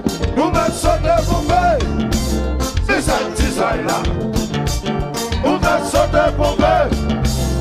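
Konpa (Haitian compas) band playing live, a lead melody coming in short, bending phrases over a steady bass and drum groove.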